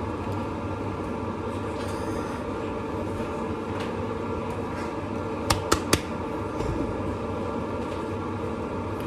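Steady mechanical drone, with three sharp clicks about halfway through.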